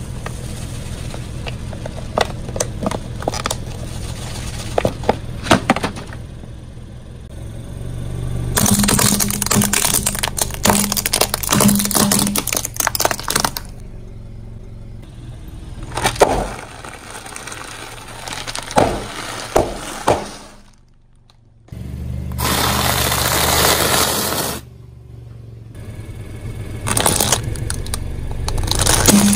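Small beads clicking as they spill out of a plastic bottle onto concrete, then a car tyre rolling over and crushing brittle plastic and glass objects with long stretches of crunching and sharp cracks.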